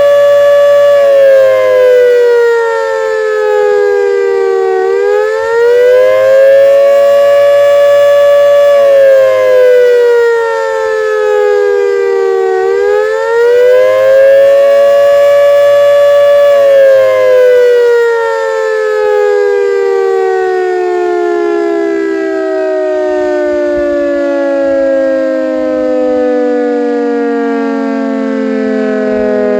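CLM 5261 outdoor warning siren sounding a test wail. It holds a high tone, falls, and climbs back twice, then winds down in a long, slowly falling tone through the second half.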